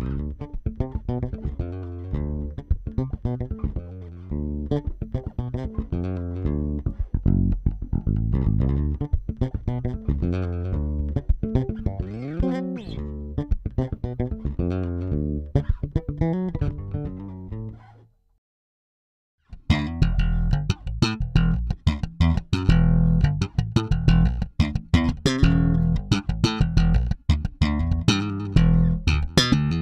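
Maruszczyk Elwood 30-inch short-scale passive jazz bass played solo, recorded dry straight into an audio interface with no effects: a busy, continuous run of plucked notes. The playing stops for about a second just past halfway, then comes back louder and more percussive, with many sharp string clicks.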